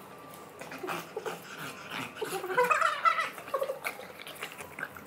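Bulldogs growling and grunting in play while tussling, with the loudest run of growls about halfway through.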